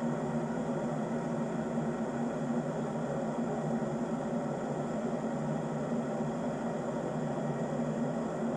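Kitfort KT-671-4 stainless-steel electric kettle (2200 W), filled to the 1.7 L maximum, heating with a steady noise as the water comes up towards the boil.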